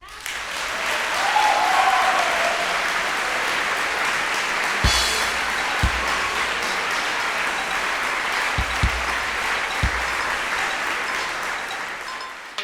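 Crowd applause and cheering, steady throughout, with a few low thumps about five to ten seconds in.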